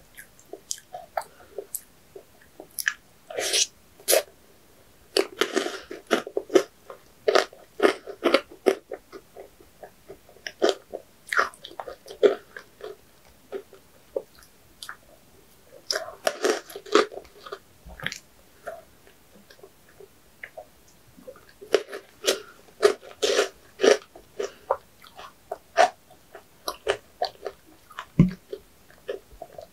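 Close-miked eating sounds: a person biting and chewing, with crisp crunching clicks that come in clusters and a few louder bursts, about three seconds in, near the middle and again past two-thirds through.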